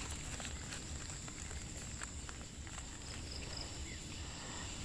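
Quiet forest ambience: a steady high insect whine, with faint rustling and small clicks from hands handling a mushroom in the leaf litter.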